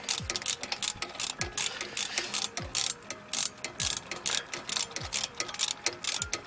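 Ratchet wrench clicking as it is worked back and forth, with a stroke about every second, backing out a front brake caliper bolt.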